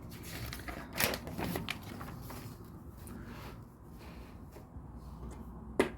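LEGO pieces being handled and fitted: plastic rustling with scattered clicks, the sharpest about a second in and another near the end.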